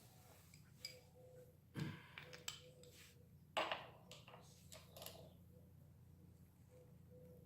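Metal hand tools being handled: a few separate clinks and clatters, the loudest about two and about three and a half seconds in, over a faint steady hum.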